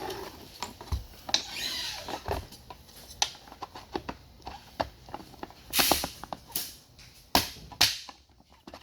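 Handling noises of a battery pack being pushed into its case: a string of clicks and knocks with short scrapes, the loudest knocks coming in the second half.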